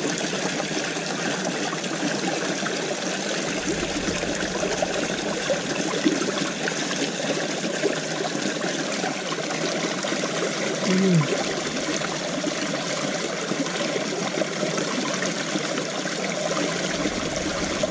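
Water of a small stone-lined ditch trickling steadily over rocks.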